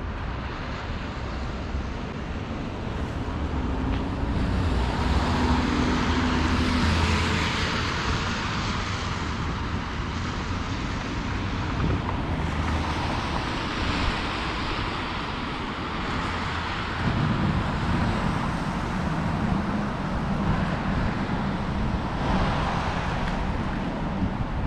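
Street traffic: motor vehicles passing close by, with one swelling up about four seconds in and fading, and another building about seventeen seconds in.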